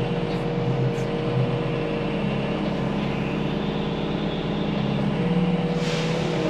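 A farm loader's engine running steadily under load while barley is being loaded. The engine note shifts about five seconds in, and there is a brief hiss near six seconds.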